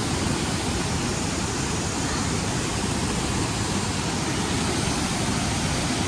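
Waterfall and stream rushing steadily over rock.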